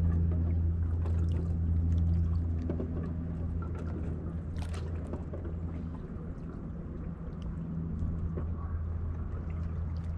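Seawater sloshing and lapping at the shore over a steady low motor hum, which eases off about six seconds in.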